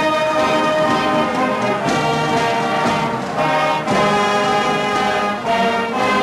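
Brass band playing a slow piece of held chords, with tubas and euphoniums carrying the low parts; the chords change every second or two.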